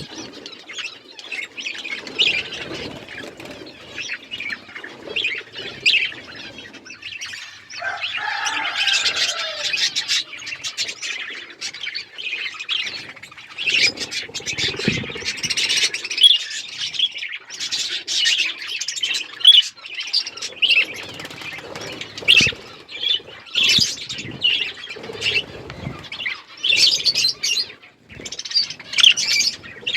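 A group of budgerigars chirping and chattering, a dense stream of quick, high, warbling chirps with occasional louder calls, and now and then soft low thumps.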